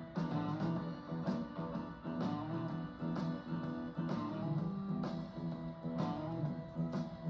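Guitar music with plucked and strummed chords in a steady rhythm.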